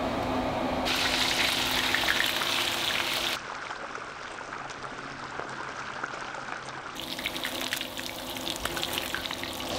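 Whole kole fish deep-frying in hot oil in a cast-iron skillet: a steady sizzle full of small crackles and pops. The sizzle comes in about a second in, turns quieter and duller for a few seconds in the middle, then comes back brighter and crackly.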